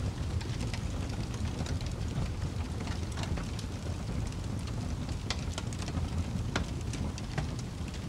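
Wood fire burning: irregular sharp crackles and pops from the logs over a low, steady rumble of the flames.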